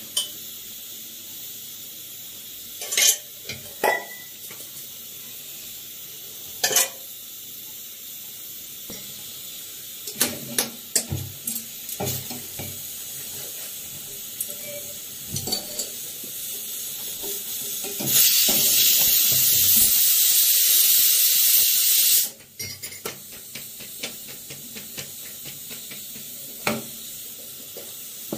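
Metal tongs clinking against an iron tawa and the steel gas stovetop while chapatis cook, in short scattered clanks. About two-thirds of the way through, a loud steady hiss of steam from the pressure cooker on the lit back burner runs for about four seconds and cuts off sharply.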